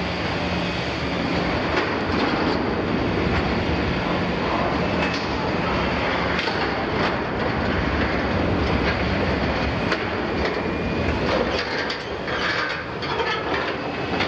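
Liebherr 974 demolition excavator working its shear into the steel walls of an oil tank: continuous metal grinding and clanking with a few brief squeals, over the machine's diesel engine running.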